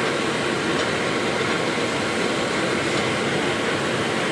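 Steady machine noise, an even rush with no distinct beat or pitch change.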